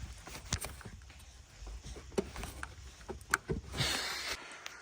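Light clicks and knocks of plastic as the squeezed quick-connector of a small vacuum hose under an engine's purge valve is worked loose, with a brief rustle about four seconds in.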